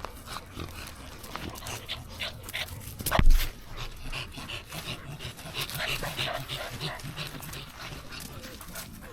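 American Bully dogs and puppies moving about and panting, with a few small whimpers, and one loud thump about three seconds in.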